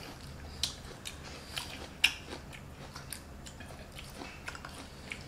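Faint eating sounds: chewing and biting food, with scattered light clicks and taps of chopsticks and dishes.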